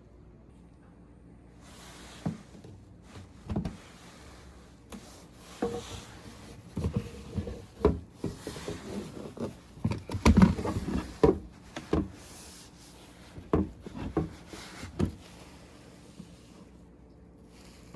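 Objects being handled in a small room: irregular knocks, taps and rubbing, busiest about ten seconds in, then settling.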